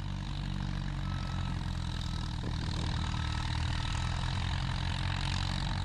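Engine of earthmoving equipment (an old tractor or a skid steer) running steadily while pushing dirt. A faint short beep repeats about once a second in the middle.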